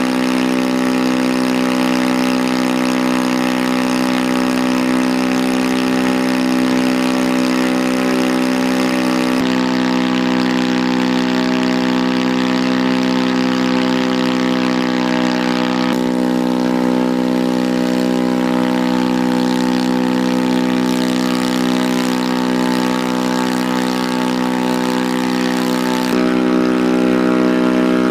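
An engine running steadily at one constant speed, an even droning hum with a clear pitch. Its tone shifts slightly a few times.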